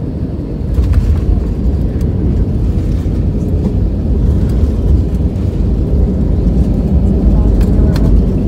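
Jet airliner rolling out on the runway just after landing, heard from inside the cabin: a loud, low rumble that grows louder about a second in, with scattered rattles and knocks.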